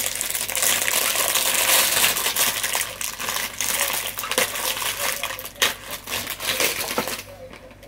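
Thin plastic packaging crinkling loudly with many small clicks as it is handled and pulled open by hand, dying away about seven seconds in.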